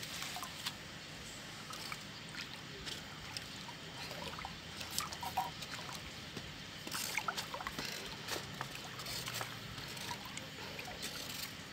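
A cup of liquid fertilizer poured briefly into a tank of water, then the water sloshing and splashing gently as it is stirred by hand with a wooden spatula to mix in the nutrient solution.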